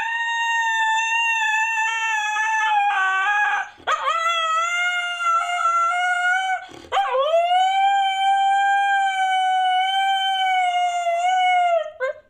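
Husky howling: three long, high howls one after another, each swooping up at its start and sagging a little as it ends, then a brief squeaky cut-off call near the end.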